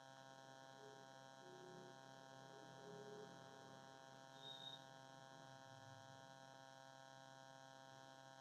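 Near silence: a faint steady electrical hum, with a few faint brief sounds in the first half.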